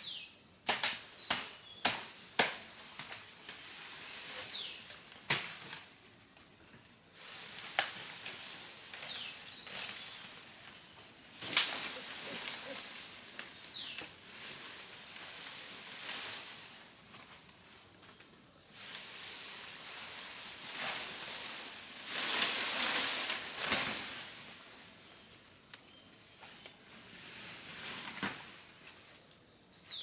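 Sharp snaps and cracks of bamboo and dry twigs, with leaves rustling, coming thick in the first dozen seconds and swelling into a longer rustle about two-thirds of the way through. A bird gives a short falling call every few seconds over a steady high insect hum.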